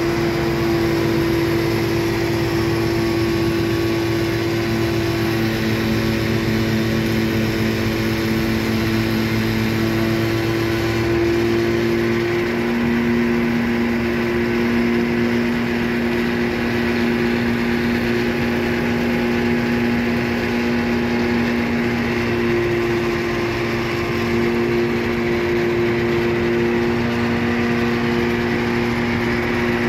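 Riverboat engine running steadily, heard on board as a constant drone. About twelve seconds in, its tone shifts slightly and the deepest hum drops away.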